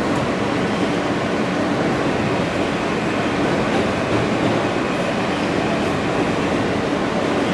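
Interior of an R-160 New York City subway car running at speed: a steady noise of wheels on rail with a steady hum underneath.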